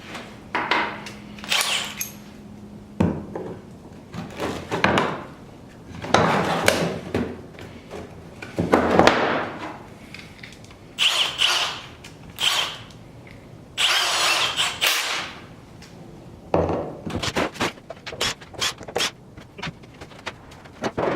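Unpacking a box of heavy planer parts: a run of short, separate bursts of rustling, scraping and knocking as packing material and metal parts are handled.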